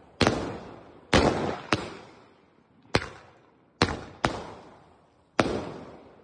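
Sky-shot firework cake (aerial repeater) firing shot after shot: seven sharp bangs, between about half a second and a second and a quarter apart, each trailing off in an echo.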